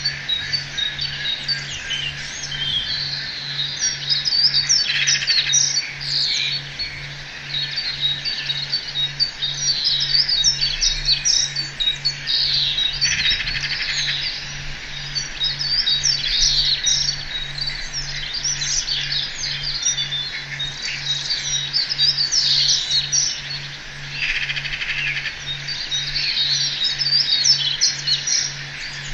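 Forest birdsong chorus: many birds chirping and trilling over one another, with no pause. Beneath it runs a low hum that pulses about one and a half times a second.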